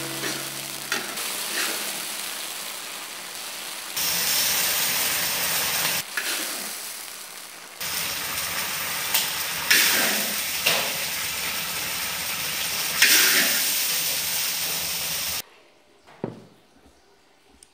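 Eggplant and minced beef in sauce sizzling in a wok, stirred and scooped with a spatula that scrapes and knocks several times. The sizzle cuts off suddenly about fifteen seconds in, leaving near quiet with one short knock.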